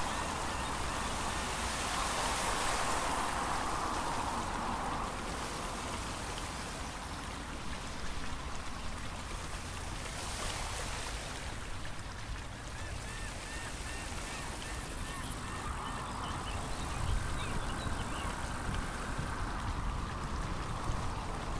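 Steady outdoor wind noise with low rumble on the microphone. From about halfway through, a bird calls in a run of short repeated notes.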